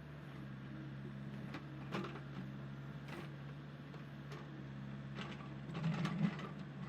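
Excavator engine running steadily, with scattered metallic clanks and knocks from the machine. A louder run of knocks comes about six seconds in.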